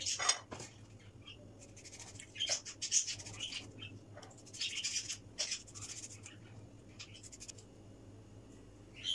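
Knife slicing tomatoes on a ceramic plate: short scrapes and clicks as the blade cuts through and meets the plate, with a sharp clink near the start.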